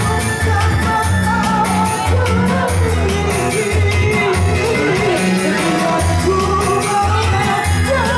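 A singer's voice over backing music with a steady beat and a repeating bass line.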